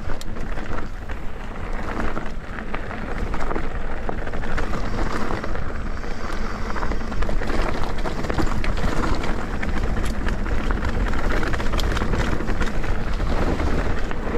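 Mountain bike riding down a dirt trail: wind rushing over the microphone and tyres rumbling, with frequent small clicks and knocks from the bike over the bumps.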